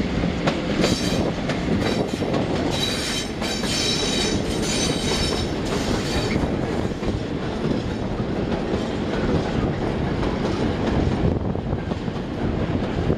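PKP Cargo EU07 electric locomotive and a train of open coal wagons passing close by: steady rumble with clattering of the wheels over the rail joints, and a high-pitched squeal over roughly the first six seconds.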